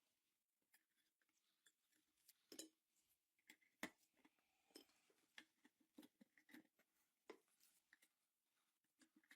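Near silence with faint, irregular small clicks and taps, a couple every second, over a faint steady hum.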